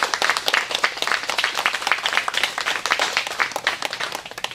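Audience applauding, with dense hand clapping that dies away near the end.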